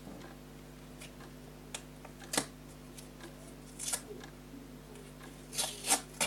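A few sharp clicks and short crinkles of a small homemade paper sticker packet being handled and opened, the loudest cluster near the end, over a faint steady hum.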